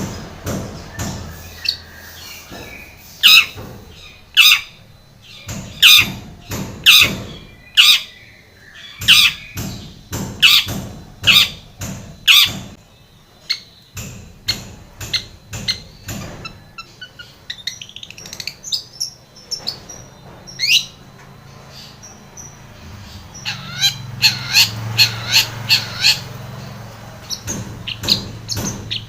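Long-tailed shrike (cendet) calling: loud, harsh, repeated calls about once a second, softer chatter in the middle, and a quicker run of calls near the end, over a low steady hum.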